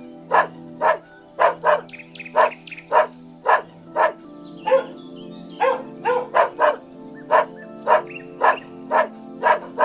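A dog barking repeatedly, about two barks a second, over a background music bed.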